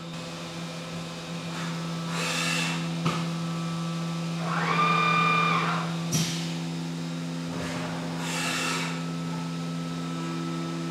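Haas UMC-750 five-axis CNC mill humming steadily while it changes tools: two rushing whooshes, a short tone in the middle that rises and falls, and a couple of sharp clicks.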